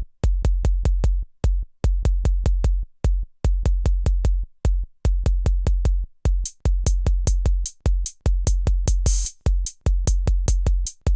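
Electronic music intro: a drum machine playing rapid kick-drum hits, about six a second in short runs with brief gaps, with a burst of hiss about nine seconds in.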